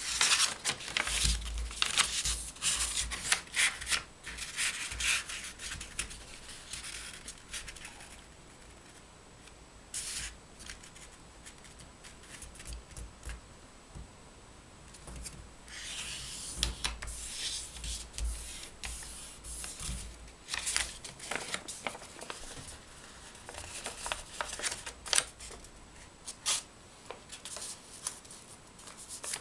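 Sheet of printed paper rustling and crackling as hands fold it and press the creases flat, in irregular bursts of crinkling with a quieter stretch in the middle.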